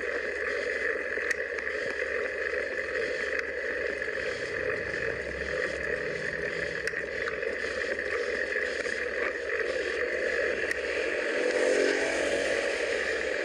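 Steady rush of wind and road noise on the microphone of a handlebar-mounted camera while a road bike is ridden along, with a few faint ticks scattered through.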